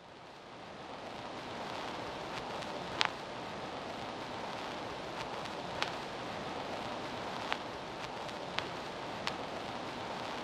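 Steady hiss with scattered sharp pops and clicks, fading in over the first two seconds: the surface noise of an old recording's soundtrack.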